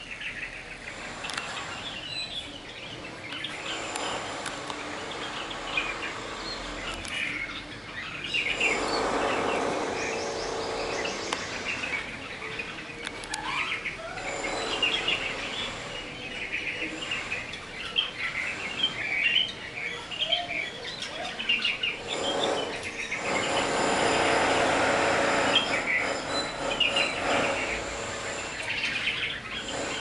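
Red-vented bulbuls chirping in many quick, short notes throughout. A broad rushing noise swells up twice, around eight seconds in and again, louder, around twenty-three seconds in.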